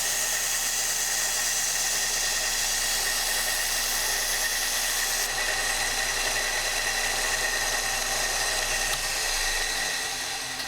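Kalamazoo 1SM belt sander running with a 400 grit belt while a knife edge is ground on it: a steady hiss with a constant high whine. Near the end the motor is switched off and the sound fades as the belt spins down.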